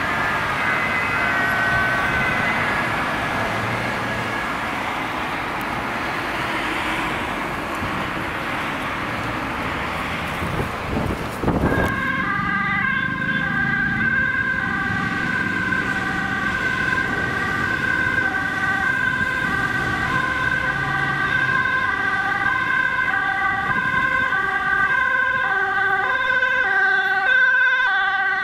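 Road traffic noise with an ambulance siren fading away, then, after a cut about halfway through, a Dutch ambulance's two-tone siren alternating high and low, growing slightly louder as the ambulance approaches with blue lights through traffic.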